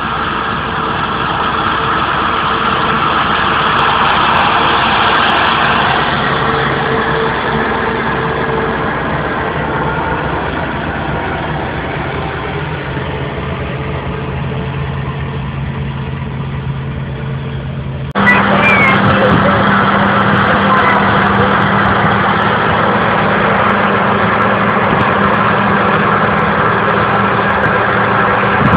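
Claas combine harvester running while harvesting, a steady engine and machinery drone. About 18 seconds in the sound cuts abruptly to a louder, steadier machine drone with a constant low hum.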